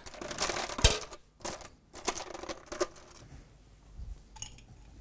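Ice cubes clattering into a glass as they are scooped in: a quick run of clinks and rattles over the first three seconds, then it goes quieter.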